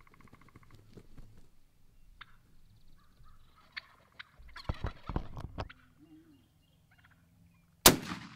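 Wild turkey toms gobbling and scuffling as they attack a downed turkey, with a cluster of loud thumps about five seconds in. Near the end a single loud gunshot cracks out, the loudest sound here.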